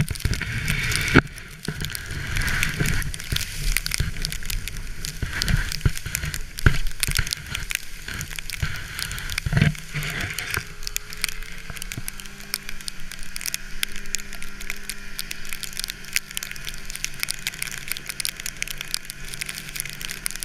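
Sled sliding over snow while towed by a snowmobile: a steady crackling hiss of snow under the sled, rougher with a few thumps in the first half. A faint steady engine hum from the snowmobile ahead comes through from about halfway on.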